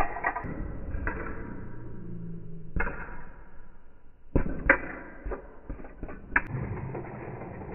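Toy cars crashing on a play mat in slow-motion playback: several dull knocks and clatters, one about three seconds in and a cluster from about four and a half to six and a half seconds in, over a low whooshing hiss.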